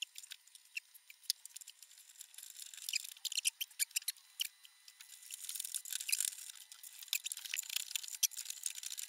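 Small clicks and scrapes of hand-fitting a wooden pivot leg under a keyboard, with a few short squeaks about three to four seconds in.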